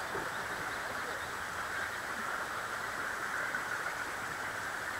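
Steady, even outdoor background hiss with no distinct knocks, clicks or calls.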